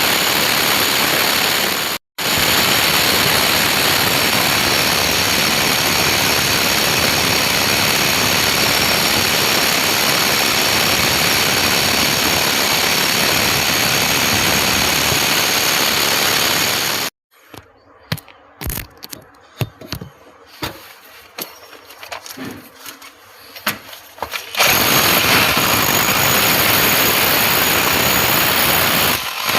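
Loud, steady machine noise with no clear pitch, cut off briefly about two seconds in; for about seven seconds in the later part it gives way to scattered clicks and knocks before the steady noise returns.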